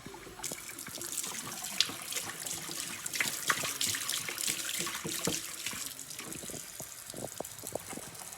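Kitchen tap running into a sink while a milk carton is rinsed out, the water splashing and hissing from about half a second in, with scattered knocks of the carton.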